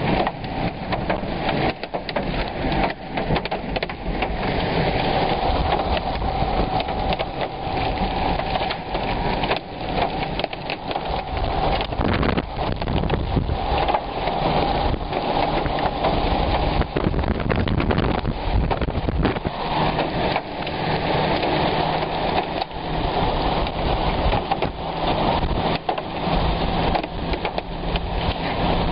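Heavy thunderstorm rain with gusting wind beating on a car, a dense patter of many small hits on the body and glass.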